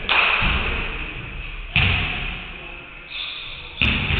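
Three loud sudden impacts about two seconds apart, each ringing on in the echo of a large gym: basketballs striking the hardwood floor or the backboard during practice.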